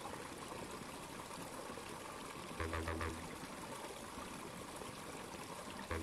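Quiet background music over a steady hiss, with a short phrase of low pitched notes about two and a half seconds in.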